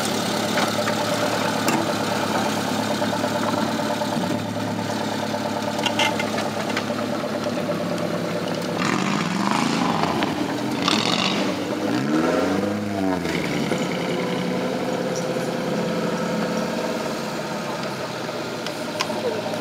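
Off-road Suzuki Samurai's engine running under load as it crawls through a trial section, revving up and back down a couple of times around the middle.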